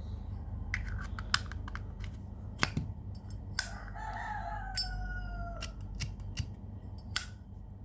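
Sharp metallic clicks and taps from a Zippo lighter being handled, its chrome case and insert knocking together. Near the middle, a rooster crows once for about two seconds.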